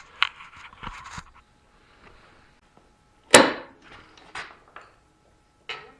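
Scattered knocks and clunks of motorcycle work in a garage, with one sharp, loud bang about three seconds in and a few smaller knocks after it, as the bike is let back down onto the ground.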